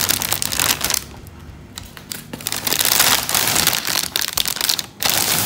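Clear plastic bag crinkling as hands handle it, in uneven bursts with a short lull about a second in.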